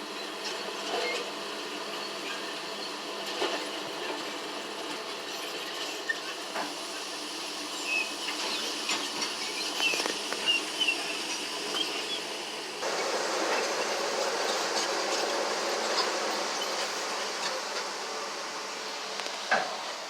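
Heavy earthmoving machinery running steadily, with scattered metallic clanks and squeaks; the sound grows louder and fuller about two-thirds of the way through.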